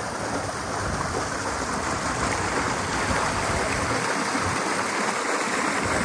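Steady rush of water running down the water slides, with gusts of wind buffeting the microphone that ease off for a moment near the end.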